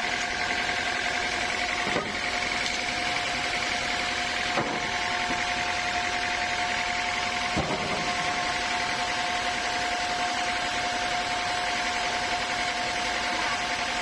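Sawmill machinery running steadily with a constant whine, broken by three sharp knocks about two, four and a half and seven and a half seconds in.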